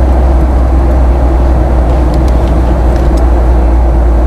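Steady airliner cabin noise: a loud, unbroken low rumble with a constant hum over it.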